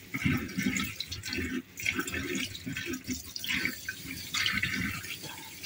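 Water from a kitchen tap running and splashing unevenly in the sink.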